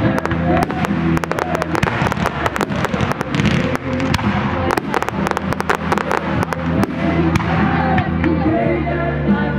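Fireworks going off in rapid volleys of bangs and crackles, densest in two runs in the first two-thirds, over music playing.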